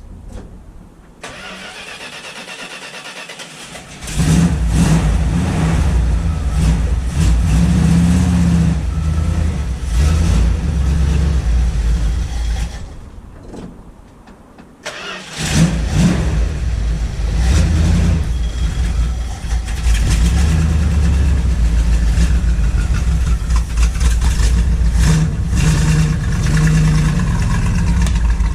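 1972 Dodge Demon's engine starting about four seconds in and running unevenly. About twelve seconds in it dies away, then starts again a couple of seconds later and keeps running. It runs rough on fuel that has gone stale, which the owner takes for super dead gas.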